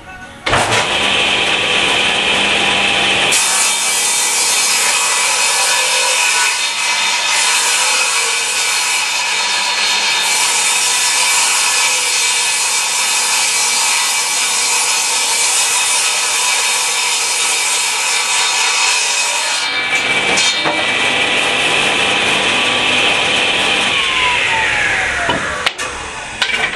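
Table saw switched on and ripping a mahogany board lengthwise: the motor's steady high whine sits under dense cutting noise for about seventeen seconds. The blade then runs free, and near the end the saw is switched off and winds down, its pitch falling.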